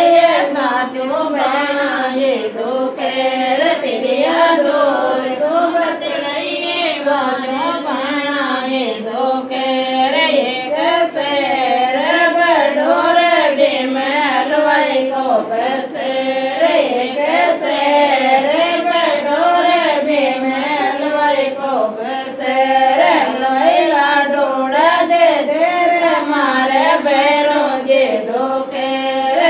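Women singing a Marwari folk song to Bheru ji (a Bheru ji geet) together, the melody rising and falling in long wavering phrases that carry on without pause.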